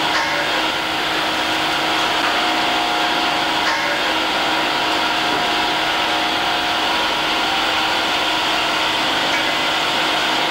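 Steady machinery whir with a constant hum from a brine ground-freezing plant's running equipment, at an even level throughout.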